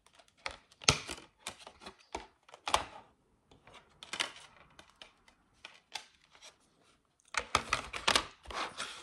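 Clear plastic CD jewel case being handled and opened by hand: scattered sharp plastic clicks and knocks, then a quick run of clatter near the end as the case is set down on the wooden table.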